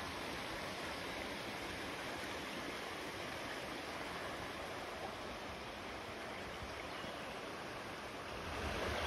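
Steady rushing of water in a shallow, rocky creek: an even hiss with no breaks, growing a little louder near the end.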